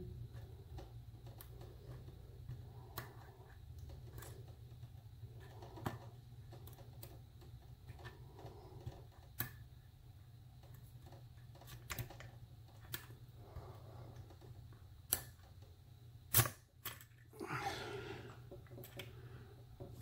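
Lock picking on a vintage Sargent pin-tumbler padlock: the steel pick ticks and scrapes faintly against the pins under heavy tension, with scattered small metallic clicks, the loudest about sixteen seconds in, over a low steady hum.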